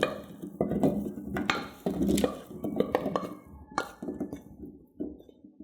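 Kitchen utensils knocking and clinking against dishes in a run of separate knocks with short ringing, thinning out near the end.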